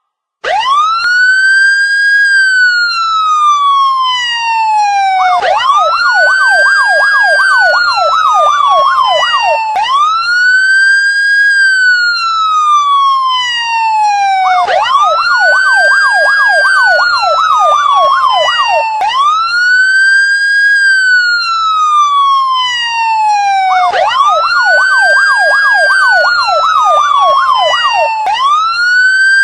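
Electronic police siren starting about half a second in. It alternates every four to five seconds between a slow wail, which rises quickly and falls slowly, and a fast yelp of rapid repeated sweeps.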